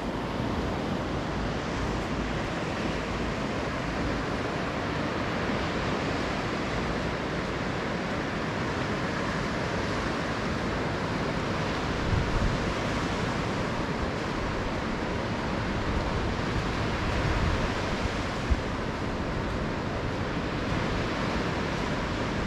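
Gentle surf washing steadily onto a shallow sandy beach. Wind buffets the microphone in low rumbles about halfway through and again a few seconds later, and there is a single brief click near the three-quarter mark.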